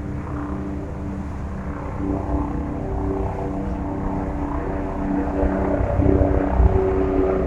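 Steady engine drone over a low rumble of wind and water, with a few held tones that grow a little louder in the last couple of seconds.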